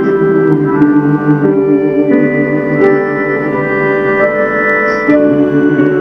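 Live song accompaniment on a button accordion (bayan), playing sustained chords that change every second or so, with an acoustic guitar plucking along. A male singer holds notes over it.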